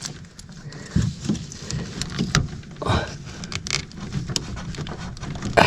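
Hand work on a hose clamp and rubber fuel hose: scattered small metal clicks and taps, with a few louder scrapes and rustles, one about three seconds in and one near the end.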